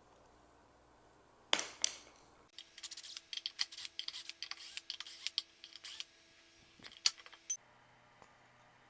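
Small hard objects being handled: a sharp knock with a brief ring about a second and a half in, then some five seconds of quick clicks and rattles with one louder knock near the end.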